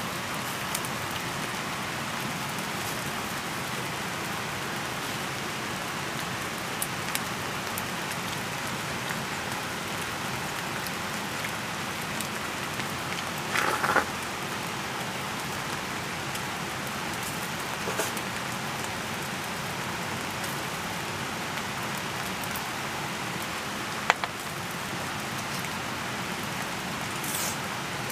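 Salmon sizzling on a mini shichirin charcoal grill: a steady hiss with scattered small pops. A brief clatter about halfway through.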